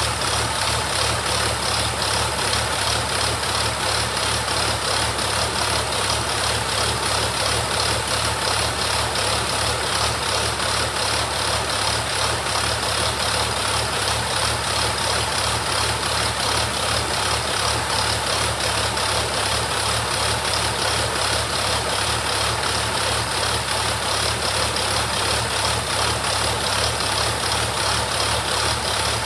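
Caterpillar 3126 inline-six diesel engine (2003) idling steadily, with an even, unchanging firing pulse.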